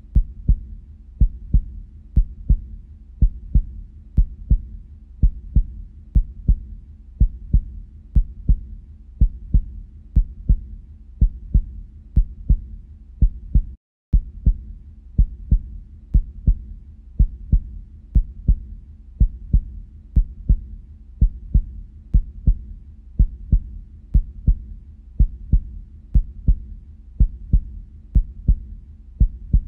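Heartbeat soundtrack: steady lub-dub double beats, about one a second, over a low hum. It drops out for a moment about 14 seconds in, then carries on.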